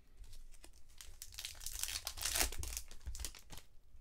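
Bowman baseball card pack wrapper crinkling and tearing as it is ripped open by hand: a rustle that builds about a second in, is loudest around two and a half seconds in and stops shortly before the end.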